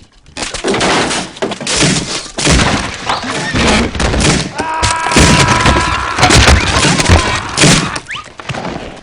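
Animation sound effects: a long, loud run of crashes, smashes and thuds in quick succession, with a steady held tone for about a second and a half midway.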